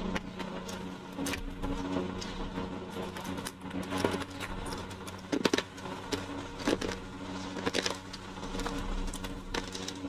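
Eating with the hands: fingers breaking fried fish and mixing food on a steel plate, giving scattered soft clicks and rustles over a steady low hum.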